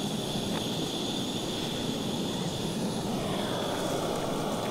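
A Primus gas canister stove burning steadily under a pot, a continuous rushing hiss. Its tone shifts about three seconds in as the valve on the canister is turned.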